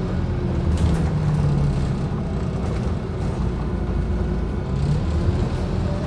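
Scania OmniCity bus's diesel engine and drivetrain heard from inside the passenger saloon while the bus drives, with tyre and road noise; the low engine note rises and falls a little as it pulls.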